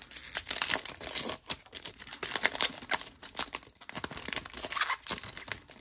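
Foil wrapper of a Topps Stadium Club baseball card pack being torn open and crinkled by hand: a run of irregular crackles and rips. The pack is a struggle to get open.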